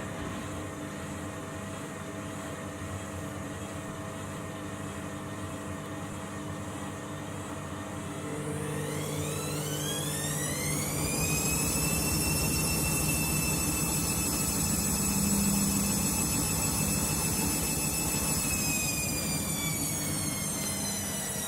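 Candy Grande Vita 7 kg washing machine in its final spin. The drum motor hums steadily at first; about eight seconds in, a whine rises in pitch as the drum speeds up to spin speed, holds steady and louder, then dips slightly near the end.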